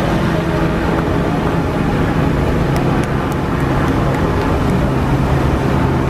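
Loud, steady rushing of a large musical fountain's water jets spraying up and falling back into the lake, with low steady tones underneath.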